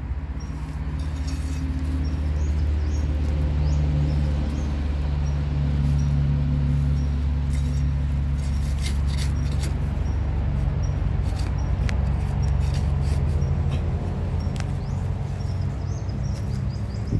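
A steady low droning hum, the loudest thing throughout, under soft scraping and crumbling of forest soil being dug apart by hand, with a patch of clicks and scrapes about halfway through. Faint short high chirps, likely birds, repeat in the background.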